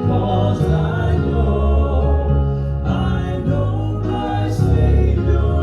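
Southern gospel male vocal quartet and backing band holding long sustained chords over a strong, steady bass, with the chord changing a couple of times, as the song comes to its close.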